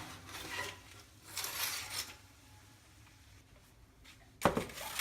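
A metal baking pan of chicken wings is handled and set down. Two brief scraping rustles come first, then a sharp clunk with a short ring near the end.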